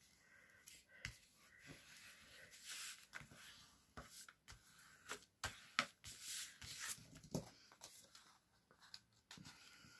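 Faint paper handling: soft rustling and scraping with scattered light ticks as cardstock is creased along a fold with a flat folding tool and then lifted.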